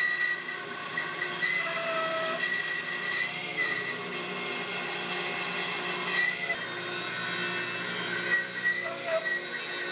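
Bandsaw running and ripping a strip off a sapele board: a steady high whine with the hiss of the blade cutting.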